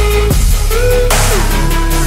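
Background electronic music with heavy bass and a pattern that repeats about every second and a half.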